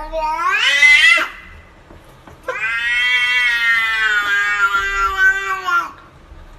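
Domestic cat giving two long, drawn-out meows. The first ends about a second in, rising in pitch. The second, after a short pause, lasts about three seconds and sags slowly in pitch.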